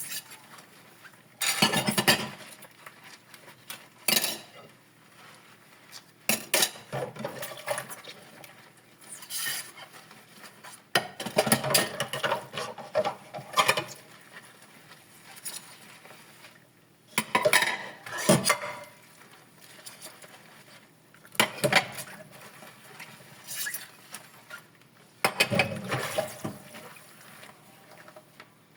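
Dishes and cutlery clinking and clattering as they are handled during hand dishwashing. The knocks come in separate bursts every one to three seconds, with quieter gaps between.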